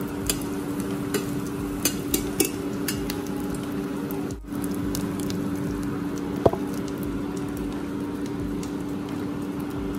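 An egg omelette frying in hot oil in a stainless steel pan: a steady sizzle, with a few sharp clicks of the steel spatula on the pan in the first few seconds and another about six and a half seconds in. A steady low hum runs underneath.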